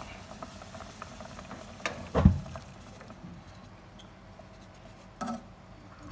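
Kitchen handling sounds: a sharp knock about two seconds in, the loudest sound here, and a smaller one after five seconds, over a faint steady hiss.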